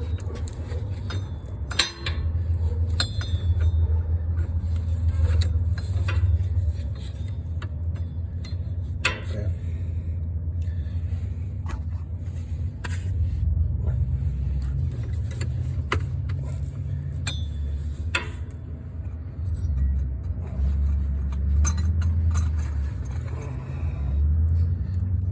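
Hand tools clicking and clinking against metal a few scattered times, over a continuous low rumble that rises and falls.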